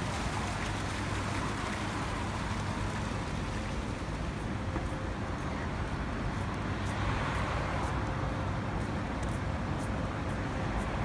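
Steady city road traffic: a constant rumble and hiss of passing vehicles, with light regular clicks from about four seconds in.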